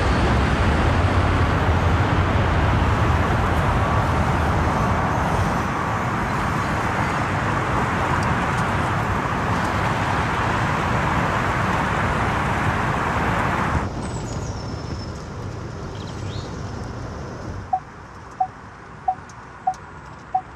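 Loud road and wind noise of a moving vehicle, with no engine note, cutting off abruptly about two-thirds of the way through. A much quieter background follows, with a run of five short beeps about two-thirds of a second apart near the end.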